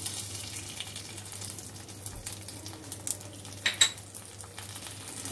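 Rice and mung dal frying quietly in mustard oil with a ginger, green chilli and cumin paste just added, a soft sizzle under scattered clinks of a metal spoon against the pan. There is one sharper clink a little before 4 seconds in.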